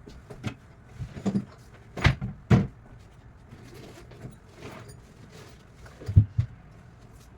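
A series of sharp knocks and clunks, the loudest a pair about two seconds in and another pair about six seconds in, with fainter taps between.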